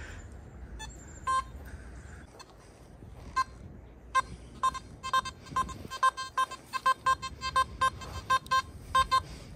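Metal detector beeping on a target: a few scattered short tones at first, then a quick run of the same short beep, about three or four a second, through the second half.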